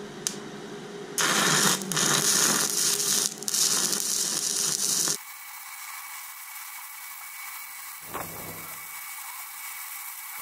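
Stick-welding arc of a 1/8-inch E7018 electrode burning at 105 amps from a ZENY inverter welder: a steady crackling hiss. It is loud for about four seconds after the first second, then drops to a fainter, thinner hiss for the rest.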